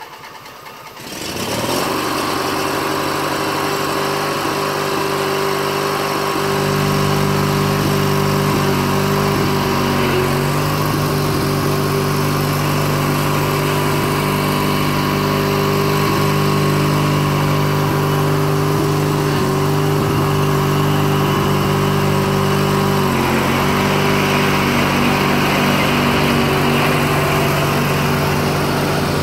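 Briggs & Stratton 20 hp opposed-twin engine on a riding lawn tractor, just started and speeding up about a second in, then running steadily under load while mowing. Its note deepens and grows fuller about six seconds in, with brief small dips later on.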